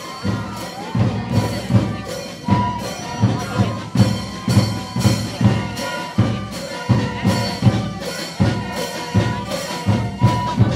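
Music with a steady drum beat, about two beats a second, under a melody line.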